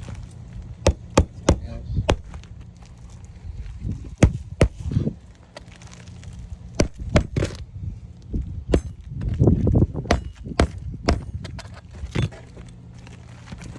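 Sharp, irregular knocks of a metal hand tool worked against asphalt roof shingles, about fifteen strikes, some in quick pairs and a scuffling cluster a little past the middle.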